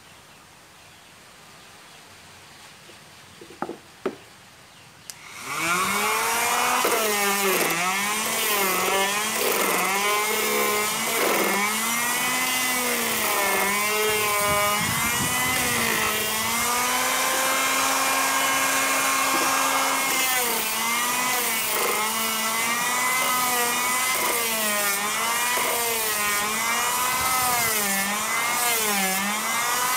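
A couple of clicks, then about five seconds in a homemade hand sander's 775 DC motor starts and runs as its sanding pad is pressed on wood. Its pitch keeps dipping and recovering as the load changes, with a steady stretch partway through.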